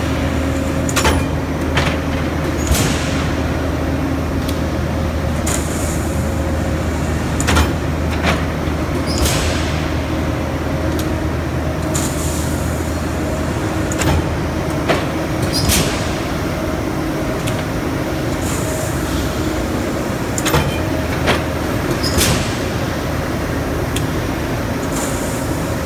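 Bradbury / Herr Voss loop cut-to-length steel coil line running: a steady machine hum, with sharp clanks and short hissing sounds every second or two.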